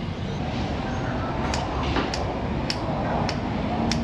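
Regular light ticks, a little under two a second, over a steady background noise.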